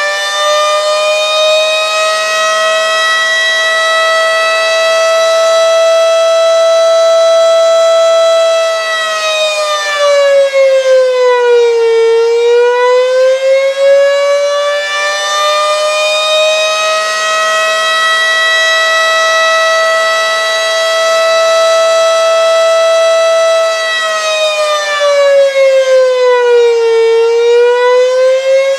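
Federal Signal Model 5 outdoor warning siren sounding the attack signal: a wavering wail that holds a steady pitch for several seconds, sags about twelve seconds in and again near the end, then climbs back. It is driven by a VFD that is badly underpowered for the siren's motor, which the owner gives as the reason it doesn't sound great.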